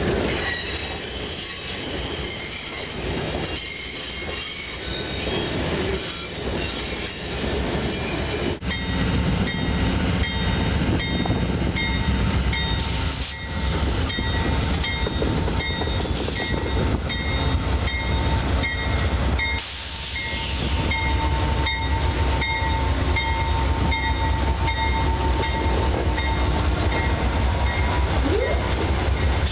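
Amtrak passenger trains hauled by GE Genesis locomotives rolling past a station platform, with rumble and wheel noise on the rails. About a third of the way in the sound cuts to a second train, which brings a high ding repeating a little more than once a second and a steady high wheel whine.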